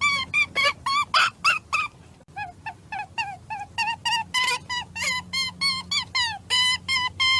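An animal's rapid series of short, high squeaking calls, each dropping in pitch, about three to four a second. They pause briefly about two seconds in, come back softer and lower, then grow louder again.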